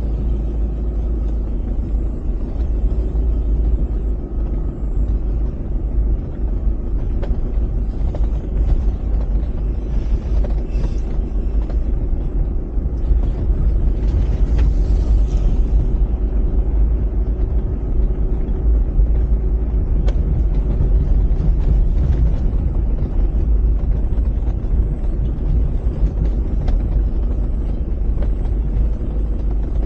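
Steady low rumble of a vehicle on the move, with wind noise buffeting the microphone.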